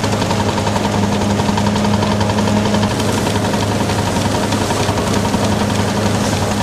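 Old belt-driven threshing machine running while threshing sheaves: a steady hum under a dense, rapid clatter from its moving shakers and sieves.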